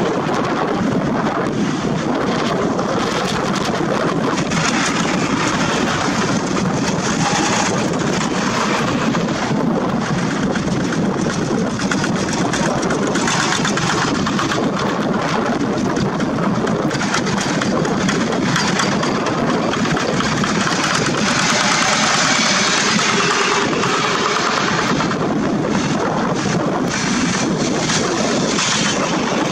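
Many two-wheel walking tractors' diesel engines running together in a convoy, a steady, dense clatter of overlapping engines.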